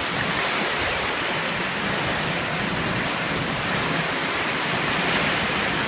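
Steady rushing noise of a storm in strong wind, with one brief tick about four and a half seconds in.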